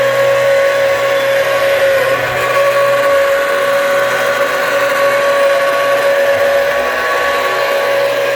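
Spindle motor of a small CNC milling-engraving machine running with a steady high whine.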